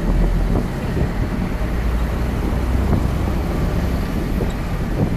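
Beijing Jeep driving along a city street, its engine and tyres making a steady low rumble.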